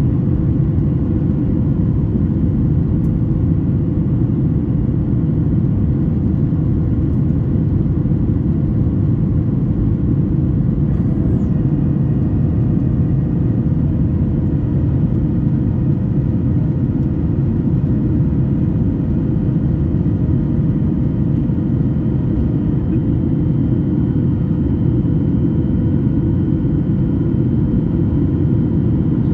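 Steady cabin noise of a Boeing 737 MAX 8 climbing after takeoff, heard from a window seat over the wing: the dense low rumble of its CFM LEAP-1B engines and the airflow, with a faint steady hum.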